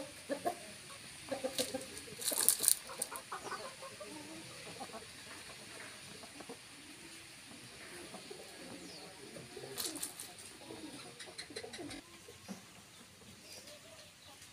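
Chickens making low clucking calls, with a cluster of sharp clicks about two seconds in and more clicks around ten seconds in.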